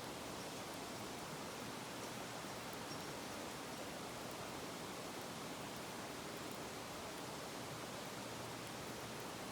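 Wood fire burning with a steady hiss and a few faint crackles.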